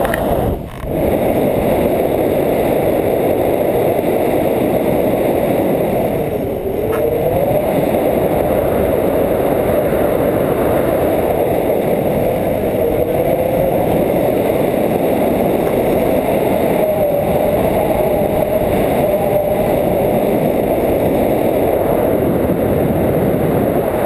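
Wind buffeting a camera microphone on a tandem paraglider in flight: a steady, loud low rumble, with a faint whistle that wavers up and down in pitch.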